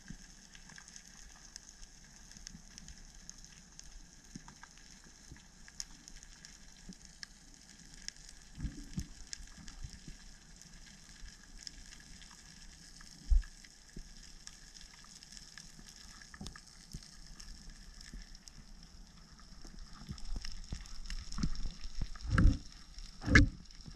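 Underwater ambience picked up through a GoPro's waterproof housing: a steady fine crackling, with a few dull low knocks and thumps, the loudest two close together near the end.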